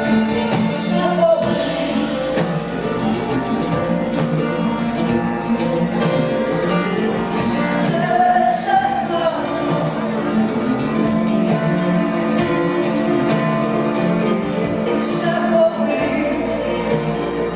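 Live band music with a woman singing a Greek song into a microphone.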